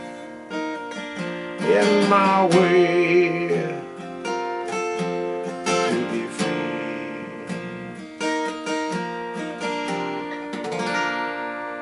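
Acoustic guitar playing the closing chords of a slow song, picked and strummed, with a final chord near the end left to ring and fade.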